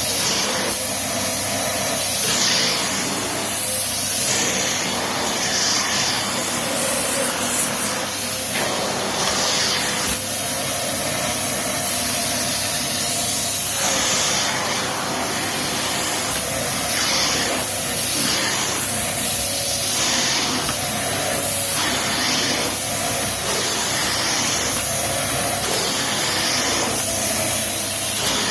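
Vacuum cleaner running steadily, its airflow hiss swelling and easing every few seconds as the nozzle moves.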